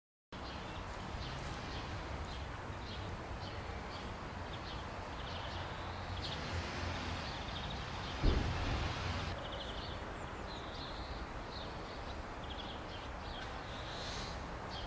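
Garden ambience: small birds chirping in short repeated trills over a steady low rumble of wind and distant traffic, with a brief low thump about eight seconds in.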